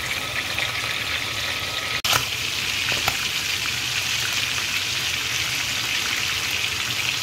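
Whole sardines frying in hot oil in a frying pan, with a steady sizzling hiss and a short break about two seconds in. The oil is still sizzling hard, which the cook takes as the sign that the fish is not yet cooked through.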